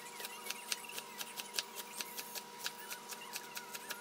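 Knife chopping green onions on a wooden cutting board: quick, even chops about five a second. A faint steady hum sits underneath.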